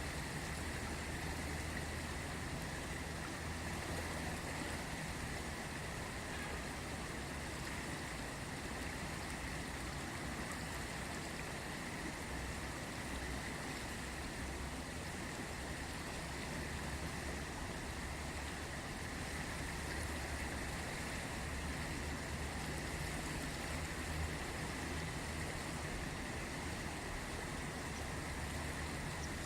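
The Ganges river flowing, a steady rush of water with a low rumble underneath.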